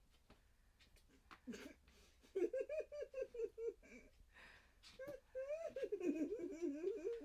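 A woman giggling in quick, high-pitched bursts, starting about two seconds in and picking up again in the second half, with faint taps and rustles before it.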